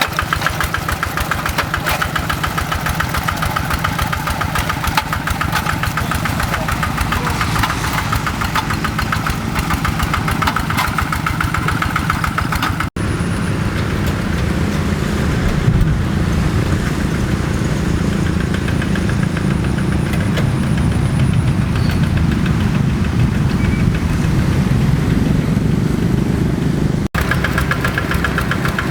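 Kubota RD85 single-cylinder diesel engine of a hand tractor running steadily, with a dense even firing rhythm. It breaks off abruptly for an instant twice, about halfway and near the end, and sounds heavier in the low end between the breaks.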